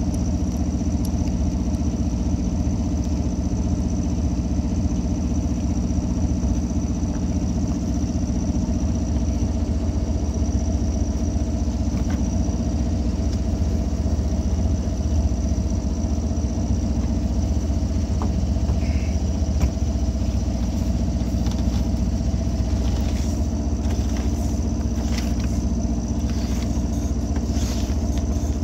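A sailboat's auxiliary engine running steadily at a constant speed, with a few light clicks near the end.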